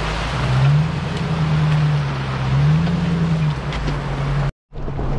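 Jeep engine drone while driving on a rough road, rising and falling in pitch as the revs change, over steady road and tyre noise. The sound cuts out completely for a moment near the end.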